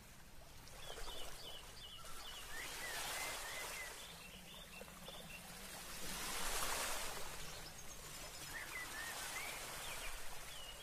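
Faint beach ambience: surf washing in and out in slow swells, with small birds chirping now and then.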